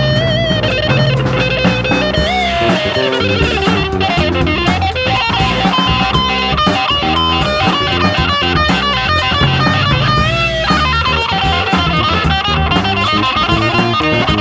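Live rock band playing an instrumental passage: an electric guitar plays a lead line with string bends over electric bass and drums.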